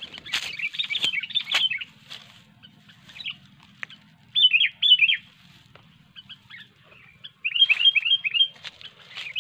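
Sooty-headed bulbuls calling in three bouts of rapid, chattering notes, mixed with a few sharp clicks.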